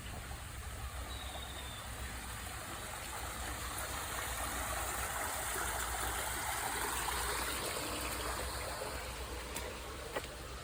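Storm runoff after a typhoon rushing down a road like a stream, growing louder about halfway through. A couple of sharp ticks near the end.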